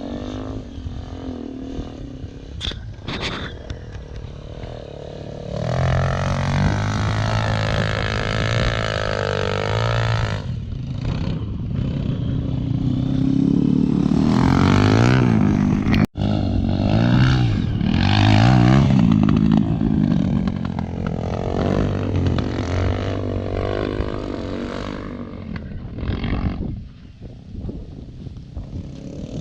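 Dirt bike engines revving and easing off as riders work through the enduro track, the note climbing and falling again and again as bikes come close and move away. Loudest through the middle, with a brief drop-out about halfway.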